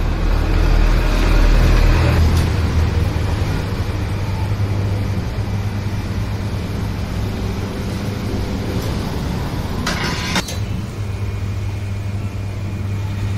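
Pneumatic tyre changer at work: a steady low machine hum, heavier in the first two seconds, with a short burst of air hiss about ten seconds in.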